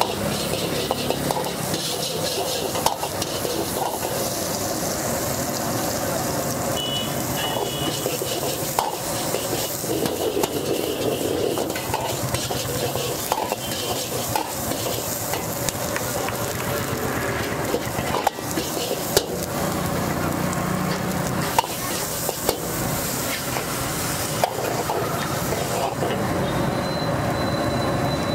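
Vegetables and noodles sizzling in a large iron wok while a long-handled metal ladle stirs and scrapes them, with frequent sharp clanks of the ladle against the wok.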